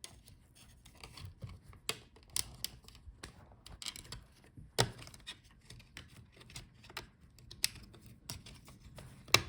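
Irregular light clicks and taps of hands working inside an opened HP ProBook 445 G11 laptop as the cover over the RAM is lifted off, with a handful of sharper clicks standing out.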